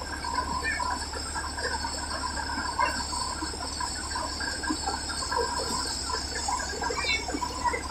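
Tractor-driven paddy thresher running steadily under load as rice sheaves are fed in: a constant low hum with steady high-pitched whines over it. A few short high chirps sound over the machine, one near the end.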